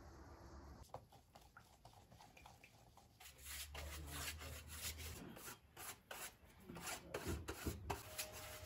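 Paintbrush spreading thinned dope sanding sealer over a wooden model boat hull: faint, irregular rubbing brush strokes with small clicks and knocks as the brush and hull are handled.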